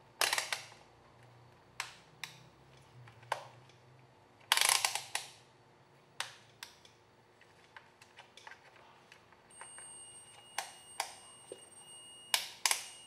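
Scattered sharp clicks and knocks from handling bench test gear: a rotary meter dial being turned and a phone being moved on the bench mat, with a quick run of clicks about a third of the way in. A faint steady high whine comes in past the middle.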